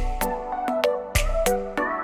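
Background music: a melody of pitched synth or keyboard notes over a steady beat with kick drum and snare.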